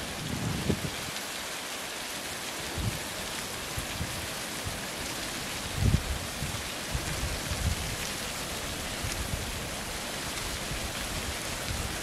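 Thin waterfall spraying down a rock face: a steady, rain-like hiss of falling water, with irregular low rumbles, the strongest about six seconds in.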